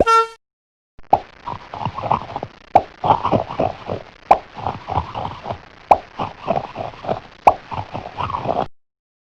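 A cartoon popping sound effect: a quick run of short pops, several a second, with a sharper click about every second and a half, stopping shortly before the end. The tail of a short ringing tone fades out at the very start.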